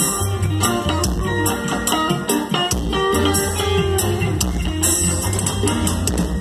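Reggae band playing live, with electric guitar, bass guitar and drum kit.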